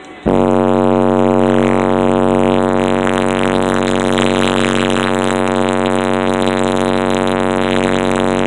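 Car audio subwoofers playing one long, loud, steady low bass tone, a sound-pressure-level 'burp' that overloads the microphone into a distorted buzz. It starts abruptly about a quarter second in and holds at one pitch without a break; the run is metered at about 161.6 dB.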